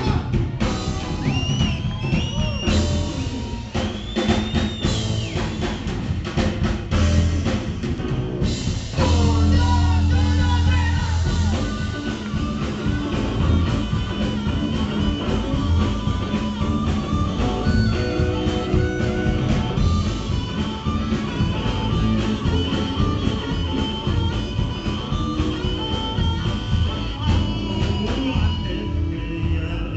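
A blues-rock band playing, with a drum kit, a guitar and a singing voice.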